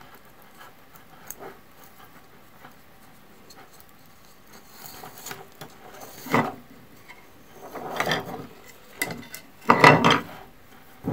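Hands handling a 3D-printed plastic dragon body while threading wires through it: a few faint ticks, then several short rubbing and scraping bursts in the second half, the loudest about ten seconds in.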